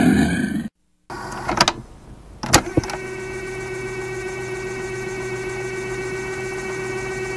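A deep creature roar sound effect cuts off abruptly under a second in. After a brief silence come two sharp hits about a second apart, then a steady electric hum with several held tones.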